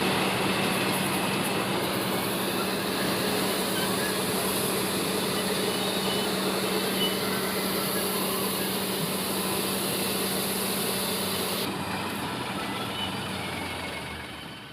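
Diesel engine of heavy farm machinery running steadily under a constant low hum, with no revving. The high hiss drops away about three seconds before the end while the engine keeps running.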